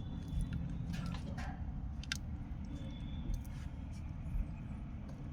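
Scattered light metallic clicks and clinks over a steady low rumble, the sharpest click about two seconds in.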